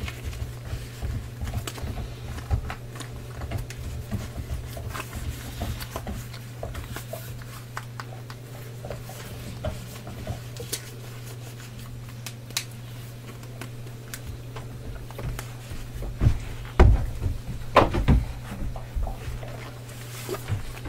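Handling noise as a pair of earmuffs is put on and adjusted: scattered light clicks and knocks, with a few louder thumps near the end, over a steady low hum.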